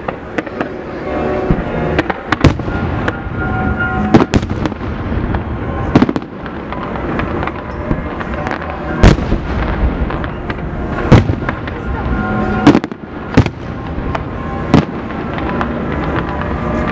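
Dense New Year's fireworks: a continuous crackle of many shells and firecrackers with sharp bangs every second or so, the loudest about nine and eleven seconds in.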